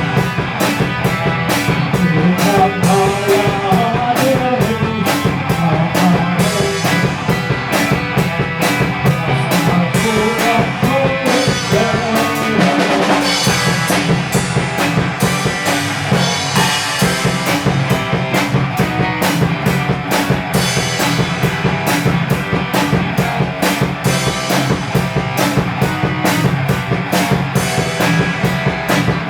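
Rock band playing an instrumental passage at rehearsal: a drum kit keeps a steady beat under guitars.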